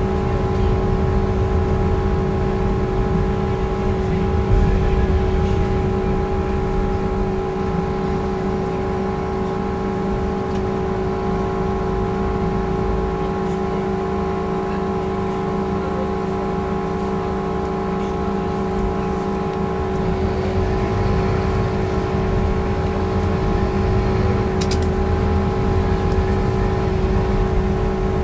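Scania K230UB bus heard from inside the passenger saloon while under way: its five-cylinder diesel and drivetrain run with a low rumble and a steady whine. The sound eases a little in the middle and picks up again near the end.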